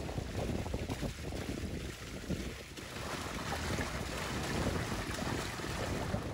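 Spring water gushing steadily from a stone fountain and splashing, the stream landing in a bowl of meat being rinsed.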